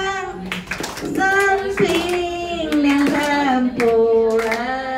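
A group of people singing a slow song together, notes held about a second each, with hand clapping along.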